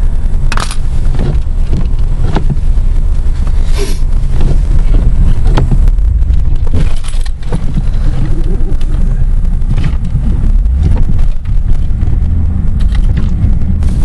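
Truck running, heard from inside the cab as a steady low rumble, with frequent clicks and scrapes close to the microphone.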